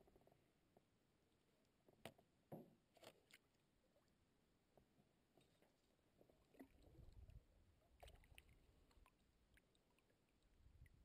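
Faint canoe paddling sounds on calm water: a few light knocks of the paddle against the hull about two to three seconds in and again around eight seconds, with soft swishes of the paddle moving through the water.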